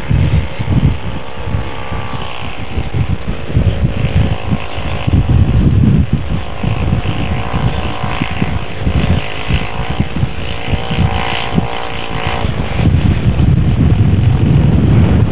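Engine of an RC model aircraft in flight, a steady high buzzing note that dips slightly early on and then drops away about twelve seconds in as the model is throttled back to land. Gusty wind buffets the microphone throughout.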